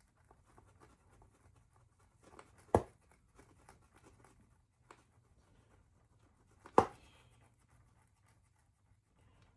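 Faint handling and rustling with two sharp knocks, one about three seconds in and one about seven seconds in, as things are bumped or set down on a work surface.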